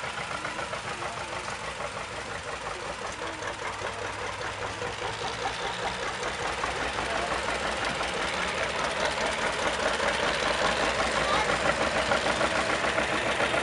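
John Deere Model 70's two-cylinder engine running under load with a rapid, even pulse as it tows a stalled tractor, growing louder toward the end.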